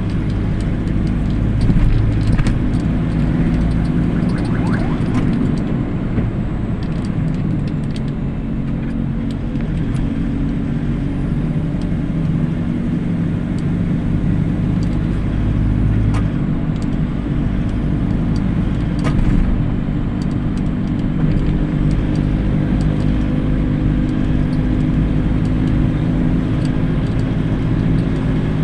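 Motorcycle engine running steadily, the bike heavily loaded with harvested corn.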